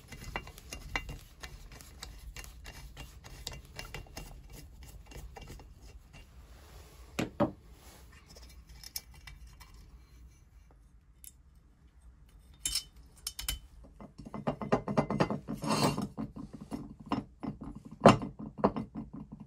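Metal clicking and scraping as nuts and bolts are worked loose with a nut driver from the bench grinder's metal base, with a single louder knock partway through. Near the end comes a denser run of metal parts clattering and knocking, with one loud clank.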